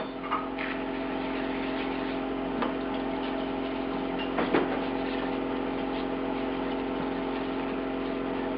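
A steady machine hum made of several fixed tones, with a few faint clicks of small metal parts being handled about half a second, two and a half and four and a half seconds in.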